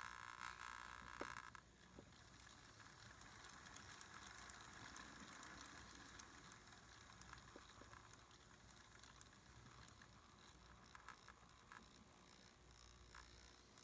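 Faulhaber motor driving a brass model steam-locomotive chassis on rolling-road rollers: a faint, steady whir of the motor and gearing with light clicks and rattles from the wheels and coupling rods. It drops a little in level about two seconds in, then runs on evenly.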